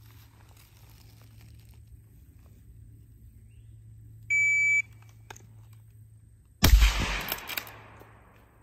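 Shot-timer start beep, a steady high tone of about half a second, roughly four seconds in; about 2.3 seconds later a single loud bolt-action rifle shot, its echo trailing off over a second or so.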